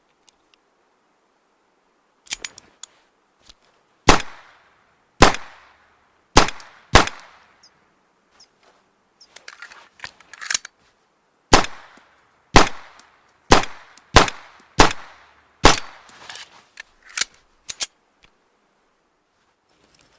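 Homemade pistol gunshot sound effect: about ten sharp cracks, each with a short ringing tail. Some come singly and some in quick pairs, with softer clicks and taps between them and a lull in the middle.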